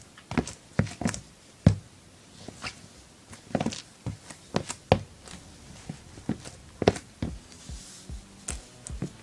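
Irregular sharp taps and knocks, a few a second, from a pair of Nike KD 6 sneakers being handled and put on.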